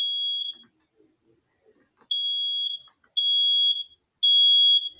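Two smoke detectors sounding together in the temporal-three alarm pattern, a high steady beep in step: one beep ends just after the start, then after a pause of about a second and a half come three beeps about a second apart.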